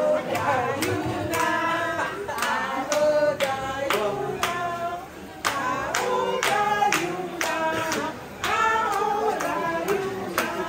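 A group of voices singing together, with hand claps keeping a steady beat.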